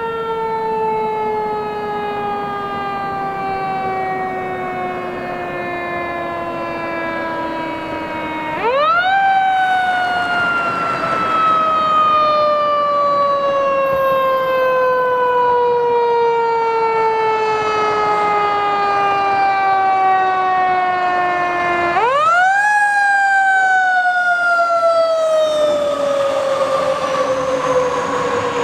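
Fire engine's mechanical siren in a long, slowly falling wail. It is wound back up quickly about nine seconds in and again about twenty-two seconds in, and after each rise it coasts down over many seconds. It grows louder as the engine approaches.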